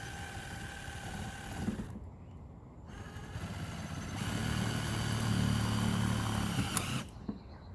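Cordless drill with a square-drive bit running in two bursts: a steady whine that stops about 2 s in, then a longer, louder run from about 3 s to about 7 s that cuts off suddenly, driving small screws into the stove pipe.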